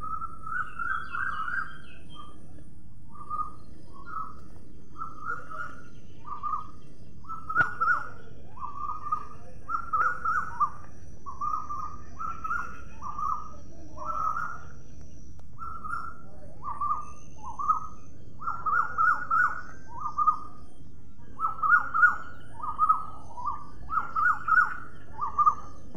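A bird calling over and over in short chirps, about two a second in uneven runs, louder in the second half.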